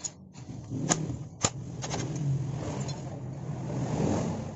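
Two sharp metallic clicks, half a second apart, of tools on engine parts. Then a motor vehicle's engine noise swells, peaks near the end, and fades.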